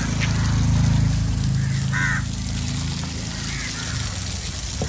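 Crows cawing a few short times, the clearest caw about two seconds in, over a steady low rumble.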